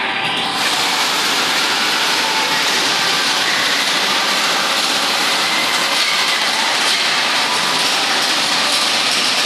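Small family roller coaster train running along its steel track: a steady rolling rattle.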